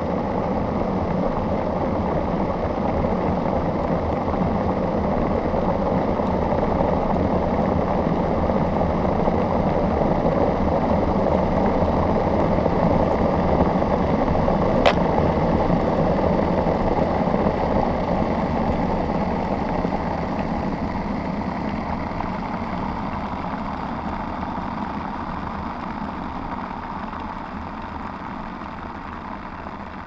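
Cheap electric kettle at a rolling boil, heard through a contact microphone on its stainless steel base: a dense, steady bubbling rumble. There is a single light click about halfway through, and the boil grows gradually quieter over the last third.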